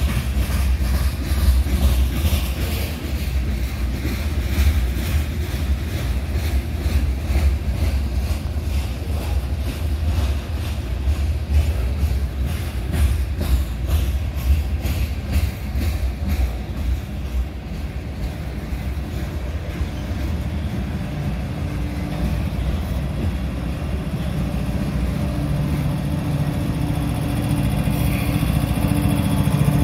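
Union Pacific freight train rolling by: a heavy low rumble with a rapid, even clicking of wheels over the rail joints through the middle, and a steadier hum building near the end.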